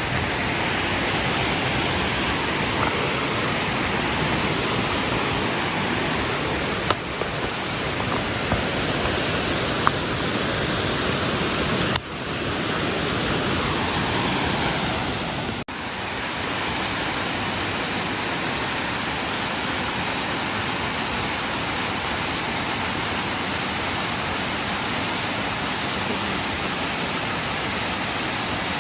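Waterfall rushing, a steady, even wash of falling water. It breaks off abruptly and resumes twice, about 12 and 16 seconds in.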